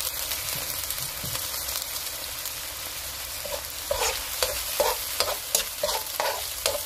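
Pork in soy-vinegar sauce with red wine sizzling in hot oil in a nonstick wok, a steady hiss. From about halfway a spoon stirs it, knocking and scraping against the pan about twice a second.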